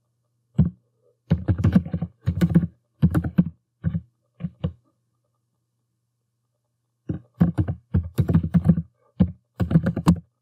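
Typing on a computer keyboard: a quick run of keystrokes for about four seconds, a pause of about two seconds, then a second run of keystrokes. These are a Google account username and then its password being typed in.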